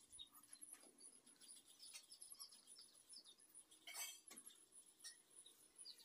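Near silence with faint high chirping throughout: scattered short chirps and a steady pulsing high trill. A soft click sounds about four seconds in.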